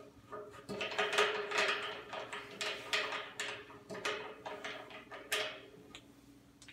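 Plastic knobs being unscrewed by hand from threaded bolts on a honey extractor's metal frame: a quick run of small clicks and scrapes for several seconds, then a single click near the end as a knob is set down on a tile floor.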